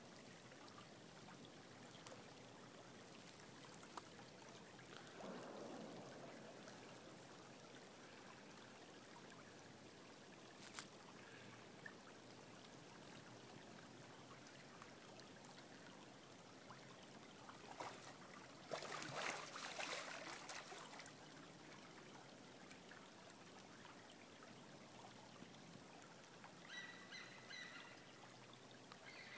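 Faint, steady trickle of a shallow gravel-bed stream. Just past the middle a louder noisy burst lasts about three seconds, and near the end come a few short high calls.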